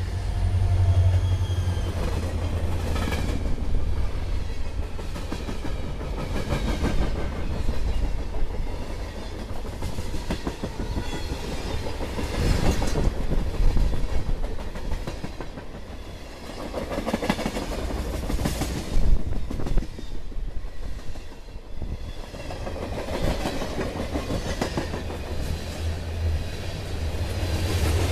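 Norfolk Southern diesel freight train passing close by. A heavy low locomotive rumble in the first couple of seconds gives way to tank cars and covered hoppers rolling past, their wheels clacking over the rail joints again and again.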